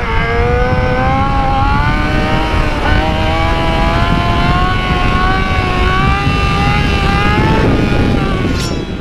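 Yamaha YZF-R6 inline-four engine running at steady cruising revs under way, its pitch wavering gently with a slight dip about three seconds in, over wind rush on the microphone.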